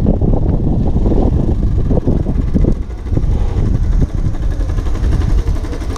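Motorcycle engine running as the bike rides slowly along the street, under a heavy, uneven low rumble on the onboard microphone.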